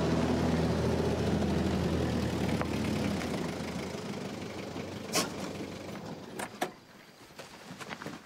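Pickup truck engine running as the truck rolls to a stop on dirt, the hum dying away over the first four seconds. A few sharp knocks follow, about five and six and a half seconds in.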